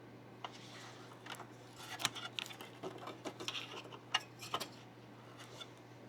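A series of small, sharp clicks and taps from hands handling computer parts during motherboard assembly, irregular and clustered in the middle, over a steady low hum.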